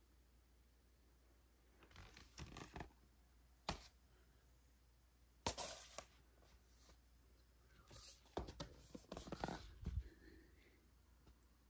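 Cardboard LP record jackets being handled: short scrapes and rustles as sleeves slide against each other while being flipped through in a crate and pulled out, with a sharp tap or two. The handling comes in brief bursts, the busiest stretch near the end.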